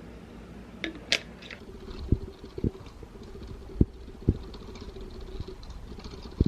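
Several dull thuds and a few light clicks over a steady low hum, like objects being handled and set down.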